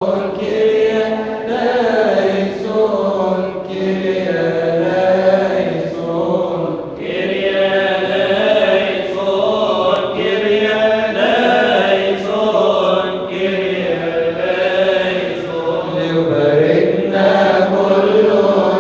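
Coptic Orthodox liturgical hymn chanted by male voices led at a microphone, in long held notes that move slowly in pitch, without instruments.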